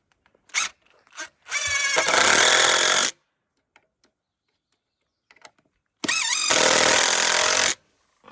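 Power driver running screws into wood in two bursts of about a second and a half each, with a few short knocks just before the first.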